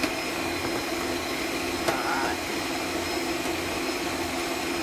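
Kenwood stand mixer running at speed, its whisk beating thickened evaporated milk in a stainless steel bowl: a steady, noisy motor drone. There is a brief knock about two seconds in.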